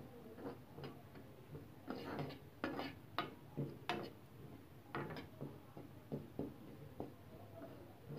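A metal spoon stirring and scraping ground coriander around a pan as it dry-roasts, making irregular clicks and short scrapes of metal on the pan.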